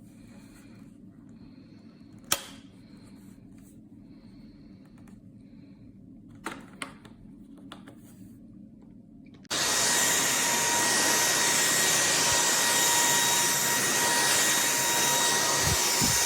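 A few sharp clicks, then about halfway through a Lubluelu cordless stick vacuum switches on abruptly and runs steadily with a high motor whine.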